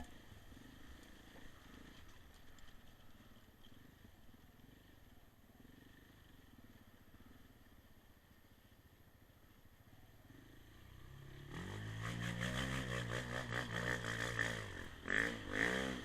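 Single-cylinder engine of a KTM 690 motorcycle, faint at first, then coming in loud about eleven seconds in as the bike nears, and revving briefly near the end. There is a sharp click at the very start.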